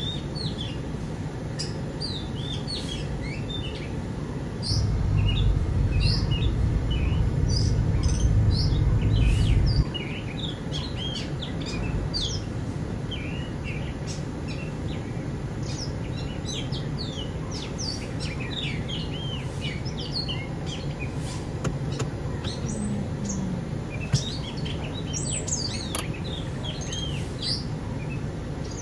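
Many small birds chirping in quick, scattered calls over a steady low background hum. A louder low rumble sets in about five seconds in and stops suddenly about ten seconds in.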